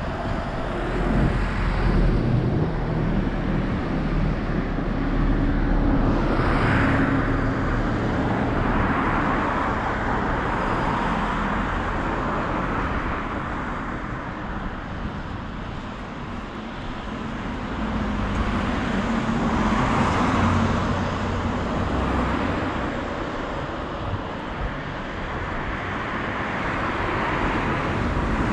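Road traffic: cars passing one after another, each swelling up and fading away over a steady background of traffic noise.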